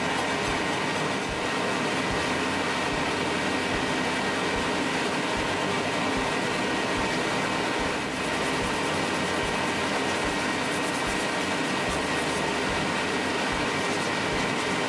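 A shop machine running with a steady drone and a constant faint whine.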